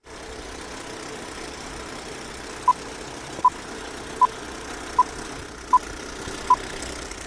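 Old-film countdown leader sound effect: a steady film-projector whirr with crackle, and six short, loud, high beeps evenly spaced about three-quarters of a second apart, beginning a little over two and a half seconds in.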